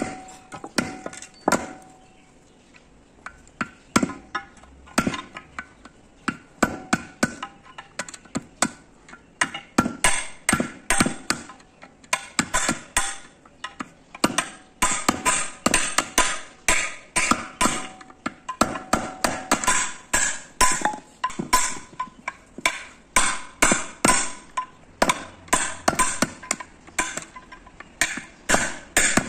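Repeated hammer blows on a steel chisel held against a steel truck drum-brake shoe, removing the old brake lining. Sharp metallic strikes, a few a second, with a pause about two seconds in and coming faster from about ten seconds on; some strikes leave a brief ring.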